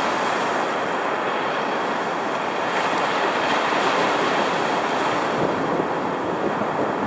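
Heavy storm surf driven by a strong cold front, roaring as waves break and wash up the sand right at the microphone. A steady, unbroken roar with wind on the microphone.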